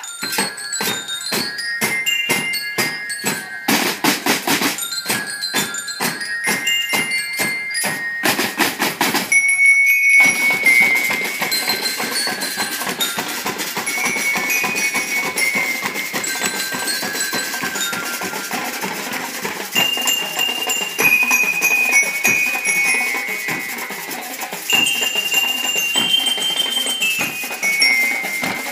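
Marching band of snare drums and bell lyres. For about the first ten seconds the drums play a hard, rhythmic cadence with bright lyre notes; after that the bell lyres carry a high, ringing melody over steady, lighter drumming.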